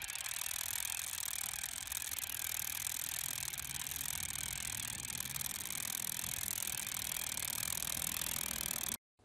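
A steady, dense, high-pitched rattling buzz with a fast fine pulse, cut off suddenly near the end.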